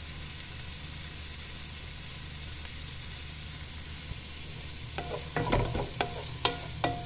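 Sliced onions frying in a non-stick pan with a steady sizzling hiss. From about five seconds in, a wooden spoon stirs them, knocking and scraping against the pan several times.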